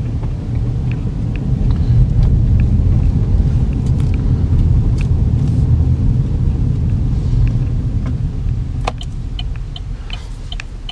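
Cabin sound of a 2014 GMC Terrain with its 2.4-litre four-cylinder, rolling slowly along a dirt lane: a steady low rumble of tyres and engine with scattered light clicks. The rumble eases near the end as the SUV slows to a stop.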